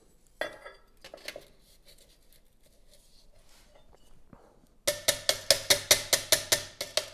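A hammer tapping a stainless steel trim strip against a flat steel bar to straighten it. A few faint clinks come first, then from about five seconds in a quick run of sharp, ringing metallic taps, about six a second.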